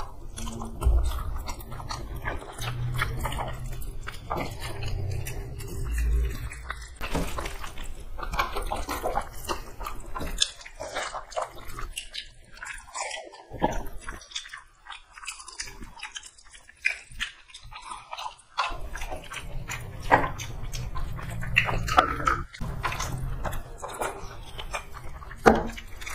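Two people chewing and biting close to the microphone as they eat boiled eggs and rice by hand, with many short wet mouth clicks and smacks; quieter for a few seconds about halfway through.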